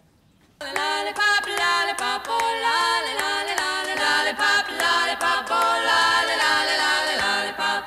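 Vocal music: several voices singing together in harmony, starting about half a second in.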